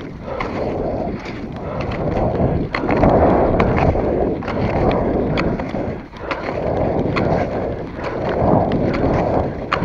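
Skate skis scraping and gliding over groomed snow, the noise swelling about once a second with each push, with sharp clicks from the ski poles planting; wind on the microphone.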